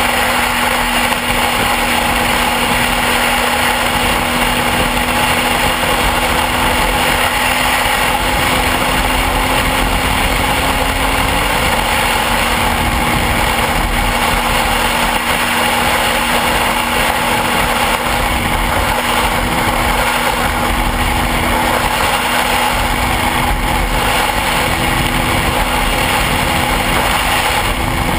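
Motorcycle running at a steady pace, its engine holding a constant note under a steady rush of noise, with a slight shift in pitch about eleven seconds in.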